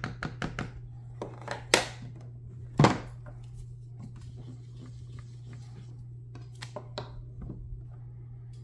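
Quick light taps of a small ink pad being dabbed onto a photopolymer stamp, then a few sharper knocks, the loudest a single thunk about three seconds in as the stamp goes down on the card, followed by a few soft clicks. A steady low hum runs underneath.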